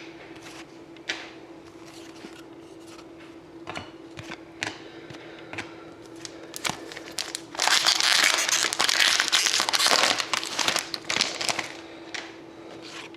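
Light clicks of cards being handled, then about four seconds of loud crinkling as a foil trading-card pack wrapper is torn open and crumpled.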